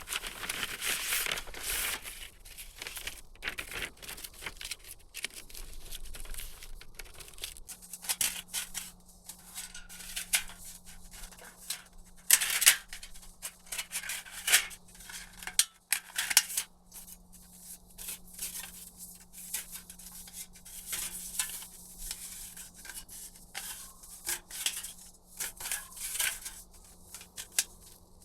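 Irregular rustling, crinkling and tearing sounds with small clicks and knocks, as of material and gear being handled. A faint steady low hum comes in about a third of the way through.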